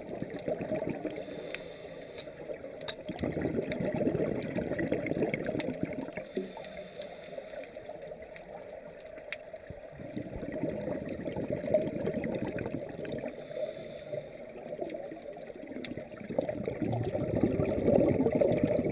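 Underwater gurgling and bubbling rumble, swelling and fading in surges several seconds apart like a scuba diver's exhaled bubbles, heard muffled through a GoPro's underwater housing, with a few faint clicks.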